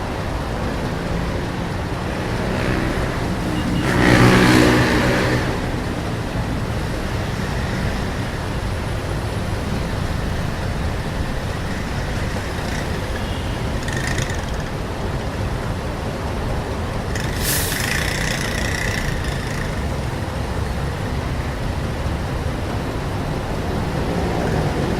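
Busy Vietnamese street traffic: a continuous rumble of passing vehicles, with one vehicle's engine passing close and loud about four seconds in. Two brief higher-pitched sounds come later in the traffic.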